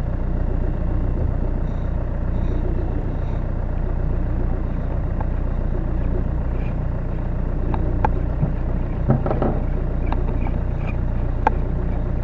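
Boat's outboard motor idling with a steady low rumble, with a few light clicks over it in the second half.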